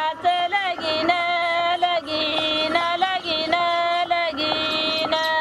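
A woman singing a slow melody of long held notes that step between pitches, with short breaks between phrases.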